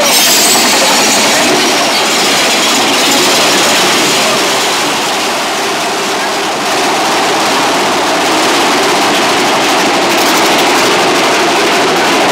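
Mine-train roller coaster running along its track, heard from a seat in the train: a loud, steady noise of the cars' wheels on the rails.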